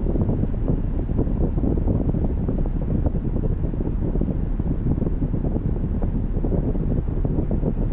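Car driving: a steady low rumble of road and wind noise that flutters irregularly.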